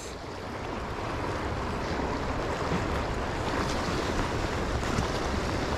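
Fast, shallow river water rushing steadily over rocks and riffles.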